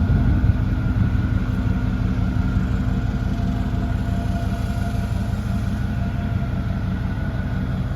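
1990 Chevrolet pickup's engine running steadily at a low, even rumble through its Flowmaster Super 10 exhaust.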